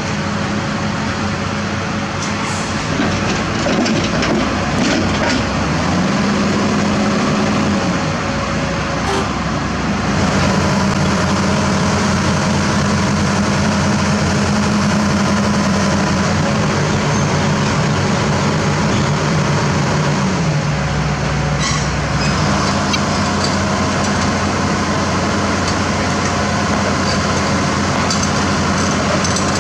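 Diesel engine of heavy equipment running steadily, its speed stepping up and down several times, with a few short clicks or knocks.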